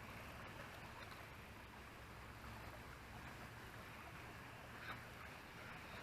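Faint, steady background noise with a low hum and one small click about five seconds in.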